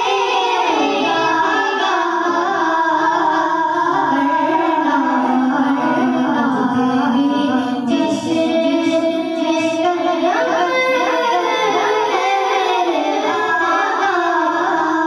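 Two boys singing a naat, an Urdu devotional song in praise of the Prophet, into microphones, in long held and bending vocal lines.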